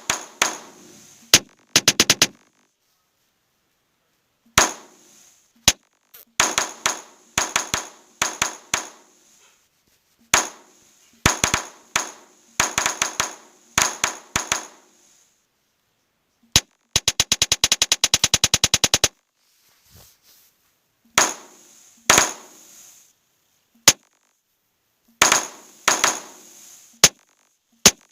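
Custom keyboard app's typing sound effects: sharp clicking strikes with a short ringing tail, one per tapped key, in irregular bursts with dead silence between. About halfway through comes a fast even run of about a dozen strikes a second.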